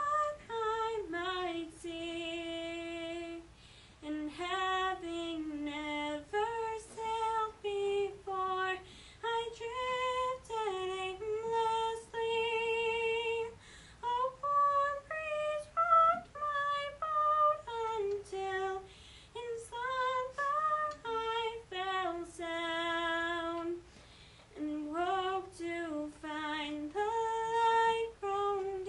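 A teenage girl singing a slow solo melody, with vibrato on the held notes and short pauses between phrases.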